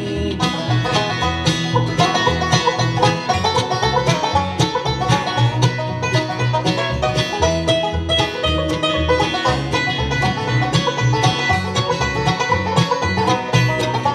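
Live bluegrass band playing an instrumental break with no singing: banjo to the fore over acoustic guitar, upright bass, mandolin and fiddle.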